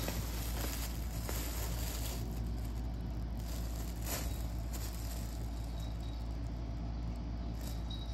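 Rustling and scuffling of a fabric pop-up cat tunnel as a cat scrambles in and around it, with scattered soft taps, over a steady low hum. The rustling is busiest in the first couple of seconds.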